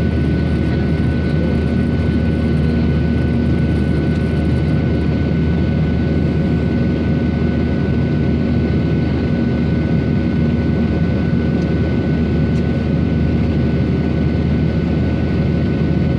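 Airliner in flight after take-off, heard inside the cabin: a steady, unchanging engine and airflow rumble with a thin steady whine above it.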